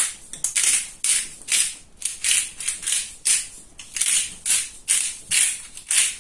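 Hand-twisted spice grinder grinding seasoning: a grating crunch with each twist, repeating a little over twice a second.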